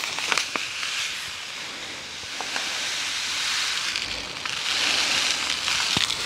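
Dry cure granules pouring from a paper packet into a small stainless-steel cup: a steady rushing hiss that eases off about two seconds in and swells again after the midpoint.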